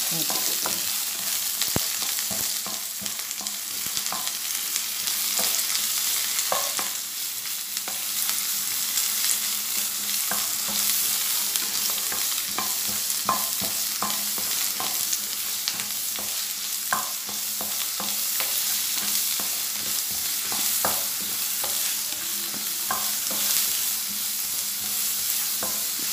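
Shallots, dried red chillies and cashew nuts sizzling in oil in a nonstick pan, stirred and scraped with a wooden spatula. Irregular short scraping strokes sound over a steady frying hiss as the mixture is sautéed until browned, ready for grinding into a paste.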